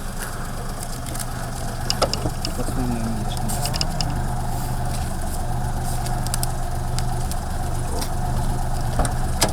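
Car engine running steadily at low revs, with a few light clicks.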